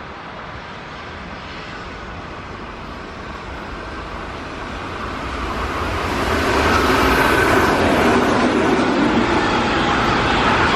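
Keihan electric train approaching and running along the station platform: rumbling and rail noise that builds gradually, grows much louder about six seconds in, then stays loud with a steady motor whine.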